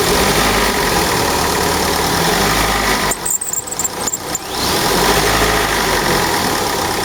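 Car engine idling with a high, bell-like whistling squeal from the accessory drive belt, while water is poured on the belt; the water makes the noise die away, a sign that the dry belt is the source. About three seconds in, the engine sound briefly drops and a few high tinkling chirps come through.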